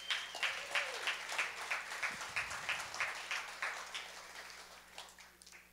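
A congregation applauding: many hands clapping that thin out and die away near the end.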